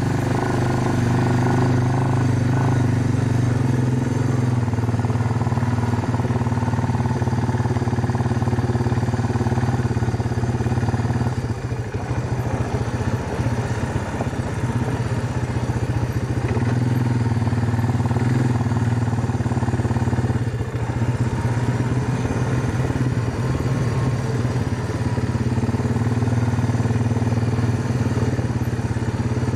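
Four-wheeler (ATV) engine running steadily while riding. About twelve seconds in, and again around twenty seconds, the steady engine note eases for a few seconds and the sound turns rattly.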